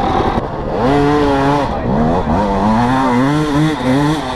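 Dirt bike engine revving hard as it climbs a steep dirt hill, pitch rising and falling with the throttle and breaking off briefly a few times, starting about half a second in.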